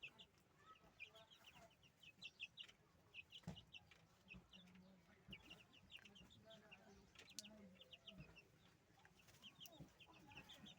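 Chickens clucking faintly, with many short, high peeps repeating throughout.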